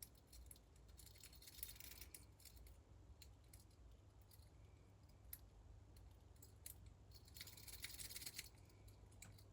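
Faint metallic scratching and clicking of a rake pick being worked in and out across the pin stack of a small Rolson padlock under light tension, in two busier spells about a second in and again near the end.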